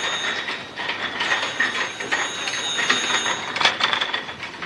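Machinery running with a dense clatter and a steady high whine. The whine stops about three and a half seconds in, followed by a short run of clicks.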